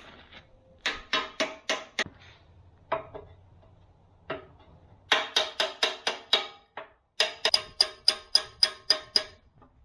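Hammer blows on the steel of a backhoe bucket and its pin mount, each strike ringing. They come in groups: a few blows, two single ones, then two fast runs of about four blows a second.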